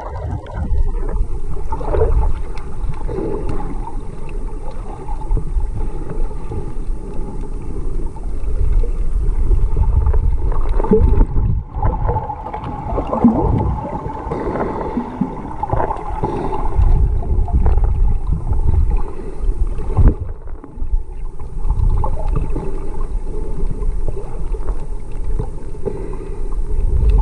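Muffled underwater rumble and gurgling of sea water moving around a submerged camera, swelling and easing, with a few sharp knocks.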